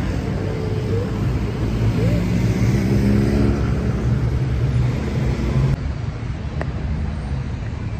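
City street traffic: cars, vans and scooters running past with a steady low rumble, one engine rising in pitch around the middle as it pulls away.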